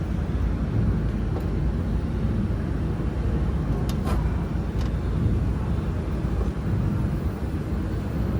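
A steady low machine rumble, with a few faint clicks near the middle.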